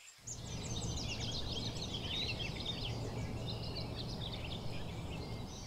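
Birdsong ambience: many small birds chirping and twittering over a steady low background rumble. It starts just after the beginning and fades out near the end.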